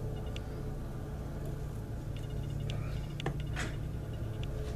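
Faint soft scrapes and a few light clicks as a rubber spatula and fingers work sticky marshmallow creme off into a stainless steel mixing bowl, over a steady low hum.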